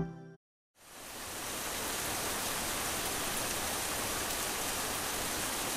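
Steady rain falling on bamboo foliage, an even hiss that fades in about a second in after a brief moment of silence.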